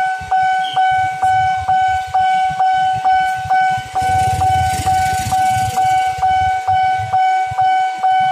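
Railway level-crossing warning bell ringing, about two strokes a second on one steady pitch, the signal that a train is approaching and the barriers are down. A passing vehicle's rumble swells briefly in the middle.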